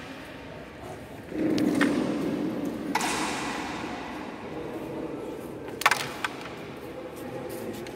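Carrom striker flicked into the centre cluster for the break: one sharp wooden crack about six seconds in, then a smaller click as the carrom men scatter. A murmur of voices in the hall runs underneath.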